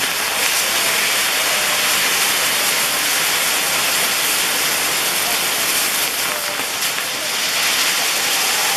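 Ground fireworks hissing steadily and loudly: the rushing spray of burning gerbs, the fountain jets that drive Maltese spinning fire wheels.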